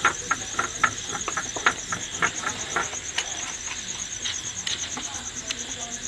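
Cooking oil glugging out of a plastic bottle into a wok, a quick run of gulps, about four a second, that stops about three seconds in. Crickets trill steadily in the background.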